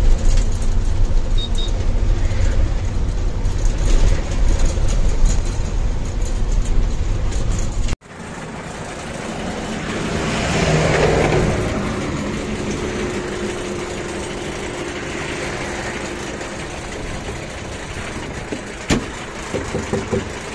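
Goods truck driving on the highway: steady low engine and road rumble that cuts off suddenly about eight seconds in, followed by quieter engine and road noise that swells for a couple of seconds and then settles to a steady hum.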